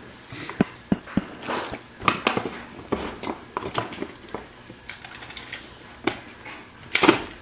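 Paper gift bag and its tissue rustling and crinkling as hands dig through it, with light clicks and knocks of small plastic toy trains being lifted out. The loudest rustle comes near the end.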